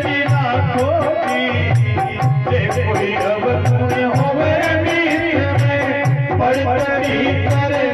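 Live Indian folk music: a man singing over a harmonium's held chords and melody, with a drum keeping a steady beat about twice a second and sharp high ticks from small percussion keeping time.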